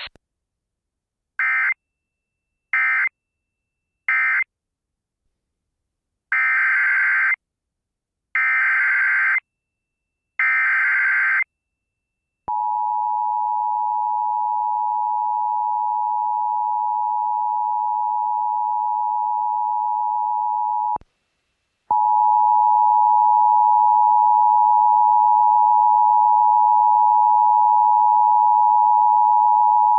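Emergency Alert System tones from a Sage EAS ENDEC: three short bursts of digital SAME data marking the end of the previous message, then three longer bursts of warbling data heading the next alert. Then the steady two-tone 853/960 Hz attention signal starts, breaks off for about a second, and resumes.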